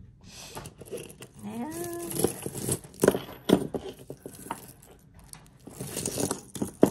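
Costume jewelry and its packing being handled and sorted: rustling, with several sharp clicks and clinks of small metal pieces. A short rising vocal sound comes about a second and a half in.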